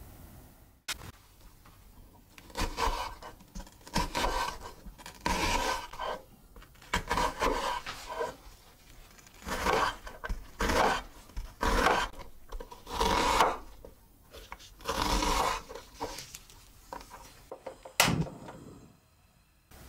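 Chef's knife slicing through an onion on a wooden cutting board: a series of short, crunchy cuts. Near the end there is a single sharp click.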